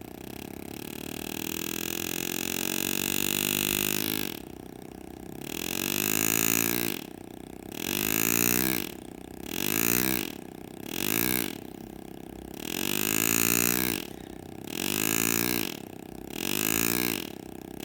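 Pneumatic engraving handpiece (air graver) buzzing as it cuts shade lines into sterling silver. There is one long run of about four seconds, then about eight shorter bursts, one for each cut, and the buzz's pitch rises and falls within each burst.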